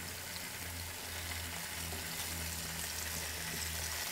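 Diced beef steak sizzling in hot olive oil in an electric skillet as the pieces are dropped in by hand, the sizzle building slightly as more pieces go in.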